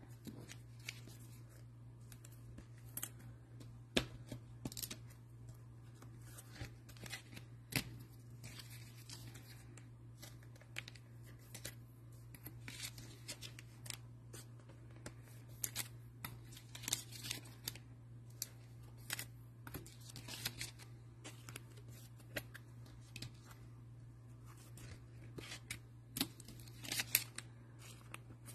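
Faint handling noises of trading cards and their packaging: scattered light clicks, taps and rustles, with a few sharper ticks near 4 and 8 seconds in and a busier patch near the end. A steady low hum runs beneath.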